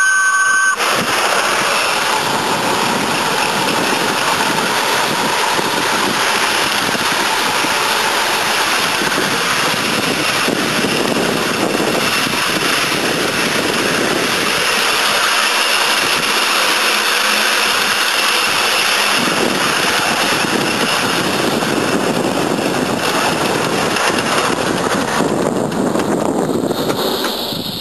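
Miniature live-steam model of an A1 Peppercorn Pacific locomotive running, with a steady rushing hiss of steam and motion. A two-note whistle tone stops just under a second in.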